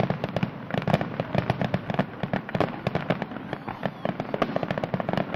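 Aerial fireworks bursting in quick succession, several bangs a second overlapping without a break.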